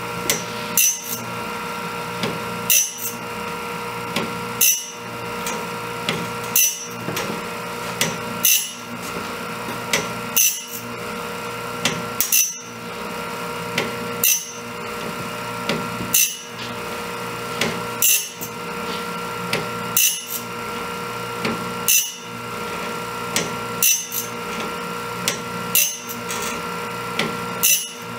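Homemade cam-driven bandsaw blade sharpener running: a steady motor and grinding-wheel hum, with a sharp double clack about every two seconds as the cam cycles the stone from tooth to tooth. It is grinding the front of each tooth's profile on a sawmill band blade.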